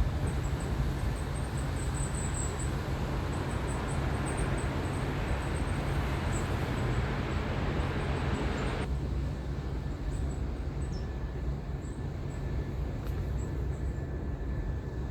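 Steady outdoor background noise: a low rumble under a hiss that drops away sharply about nine seconds in, with faint high chirps in the first few seconds.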